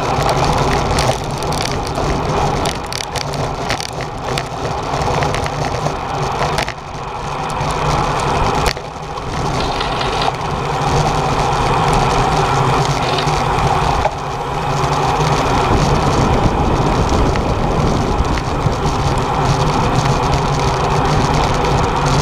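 Steady wind rushing over a bike-mounted camera's microphone while riding at racing speed in a pack of road bicycles, with the tyres running on tarmac. It grows somewhat louder about two-thirds of the way through.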